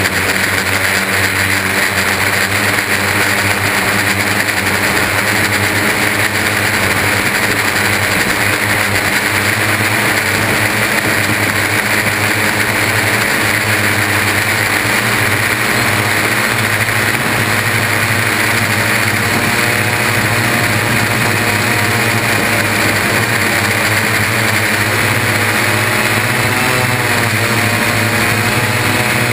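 Six brushless motors and propellers of a Y6 multirotor (three arms, coaxial motor pairs) whirring steadily, heard up close from a camera mounted on the frame. The pitch shifts a little as the throttle changes.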